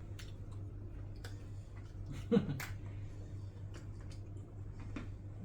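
Mung bean cake being bitten and chewed: scattered small crunches and clicks over a steady low room hum, with a short 'mm' a little over two seconds in.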